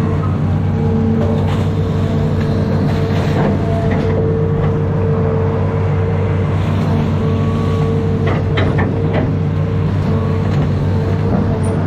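Amphibious excavator's diesel engine running steadily as the boom swings and the bucket dumps mud, heard from the operator's seat. A few sharp knocks come about two-thirds of the way in.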